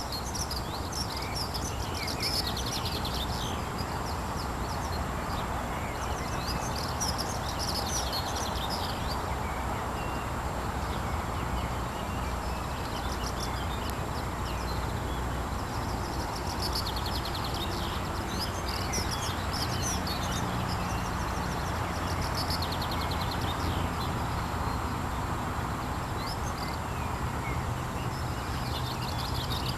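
Small birds singing in short high trills that come back every few seconds, over a steady outdoor background noise.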